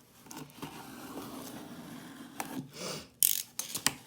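A knife cutting open packaging: a steady scraping for the first couple of seconds, then a few sharp clicks and rustles near the end.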